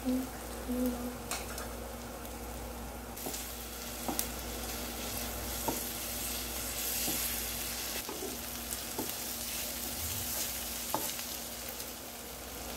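Onions, cabbage and ginger-garlic paste sizzling in hot oil on a dosa tawa, stirred with a wooden spatula that scrapes and taps the pan now and then. The sizzle grows louder about three seconds in.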